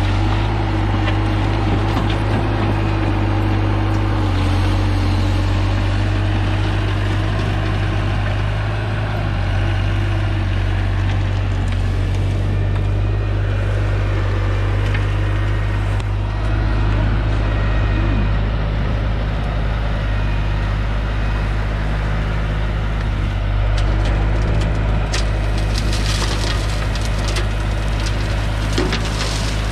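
Tracked loader's engine running steadily while it works a pile of asphalt millings, with crunching and crackling of the millings coming in near the end.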